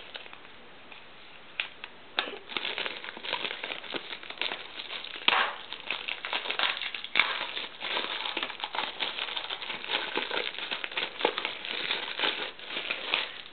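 Plastic shrink wrap crinkling and crackling as it is peeled by hand off a cardboard coin card, starting about two seconds in.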